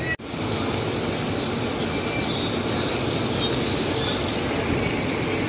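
Steady rain falling on a wet city street, a continuous hiss over a low rumble. The sound cuts out for an instant near the start.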